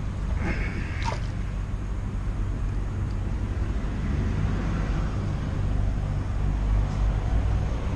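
Wind buffeting a head-mounted camera's microphone: a steady low rumble, with a brief scratchy sound about a second in.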